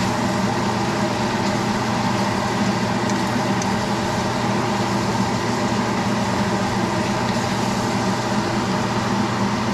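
Steady mechanical hum of several even tones under a constant hiss, with no change in level.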